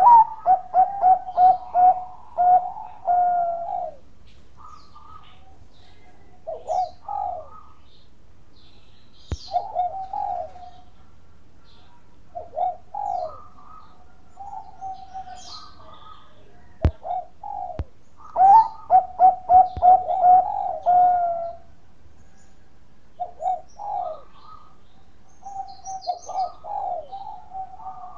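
Caged Bangkok-bred zebra dove (perkutut) singing its cooing song: runs of rapid, clipped coo notes, with a long run at the start and another about two-thirds through and shorter phrases between. Two sharp clicks come in the pause between song bouts.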